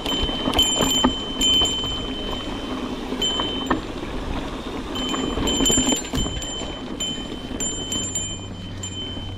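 Handlebar trail bell on a mountain bike ringing in short bursts again and again as the bike jolts over roots and rocks, over the knocking and rattling of the bike on the rough trail. The bell's off switch is broken, so it rings with every bump.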